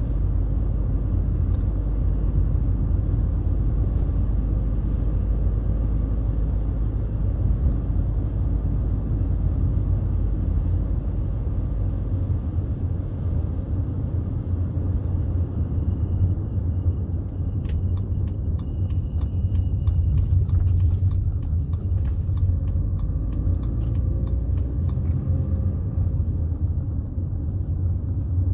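Steady low rumble of a BMW 320d E91 touring on the move: its 2.0-litre four-cylinder turbodiesel (M47D20) running under way together with road noise. The deepest part of the rumble eases about twelve seconds in.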